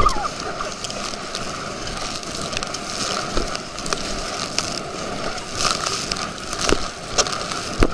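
Rushing water and wind on a camera riding a towed inflatable tube, with sharp slaps and spray as the tube bounces over the motorboat's wake, several of them in the second half.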